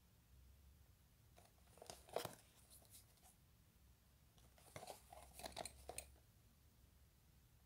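Cardboard Beyblade box and its paper packaging being handled and turned over in the hands: two short bursts of crinkling and tapping, one about two seconds in and another around five to six seconds in.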